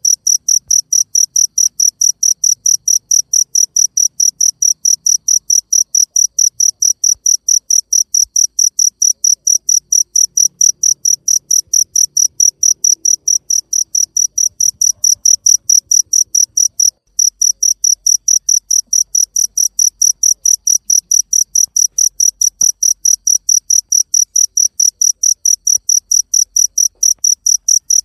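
A cricket chirping loudly and steadily in a fast, even rhythm of about four high-pitched chirps a second, with one short break about two-thirds of the way through.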